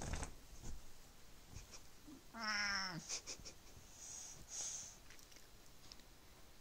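A Siamese cat meows once, about two seconds in: a single call just under a second long that drops slightly in pitch at the end. Just before it, there is a short rustle of fabric as the cat comes out from under a jacket.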